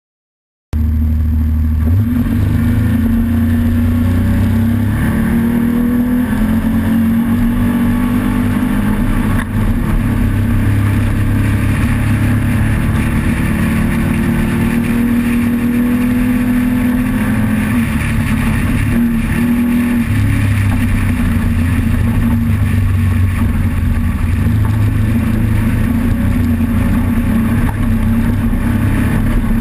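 Off-road race vehicle's engine running hard, its pitch climbing and dropping with the throttle. The sound cuts in suddenly within the first second.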